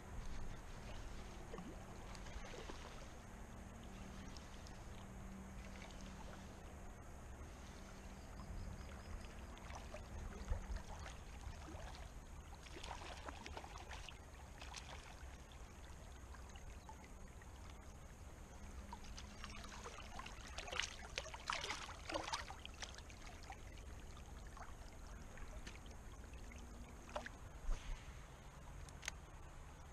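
Faint splashing and trickling of shallow river water around a wading angler, with clusters of small splashes about halfway through and again a few seconds later.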